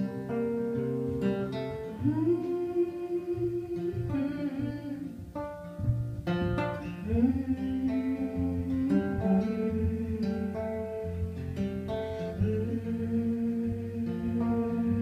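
A woman singing long, held, gliding notes over her own acoustic guitar in a live solo performance.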